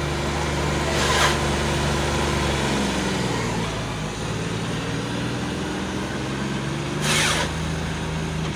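Tractor engine running steadily, its pitch changing about three seconds in and back near the end, with two brief rushing noises, one about a second in and one near the end.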